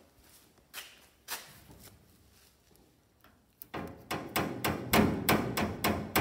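Loose steel door of a 1950 Ford F-1 pickup knocking and rattling as it is shaken, a couple of single knocks and then a quick run of about four to five knocks a second. The play in the door is worn, loose hinges: a floppy door.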